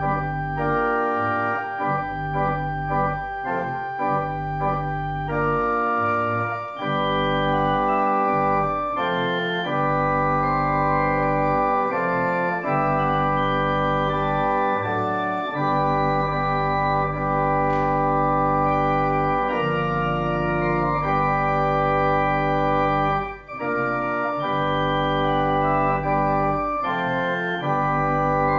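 Organ music: a slow piece played in sustained chords over a steady low pedal bass, the chords changing every second or two, with brief breaks between phrases about 7 s and 23 s in.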